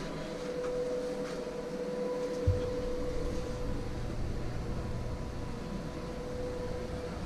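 Steady machinery hum in a yacht's engine room, with a constant mid-pitched tone over a low rumble. A single knock about two and a half seconds in.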